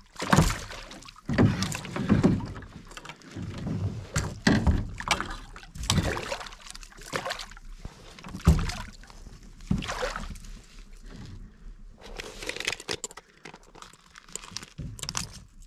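Irregular splashing and knocking around a canoe as a hooked smallmouth bass thrashes at the surface beside the hull and is drawn in and lifted out by hand.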